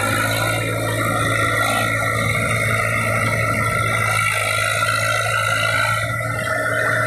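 Eicher 480 tractor's diesel engine running steadily under heavy load while it is stuck in deep mud, its rear wheels spinning and flinging mud.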